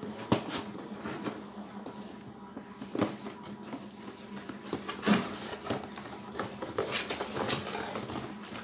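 Cardboard packaging being handled and opened: scraping and rustling as a box is slid out of its outer sleeve and its flaps pulled open, with a few sharp knocks of cardboard against the table.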